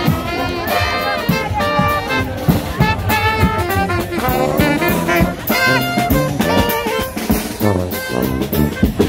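Jazz brass band music: trumpets and trombones playing a melody over a repeating low bass line, with drums.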